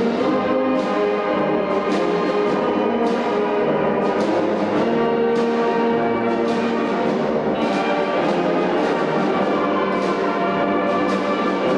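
Brass march music with a steady drum beat, about two beats a second, accompanying a majorette troupe's march.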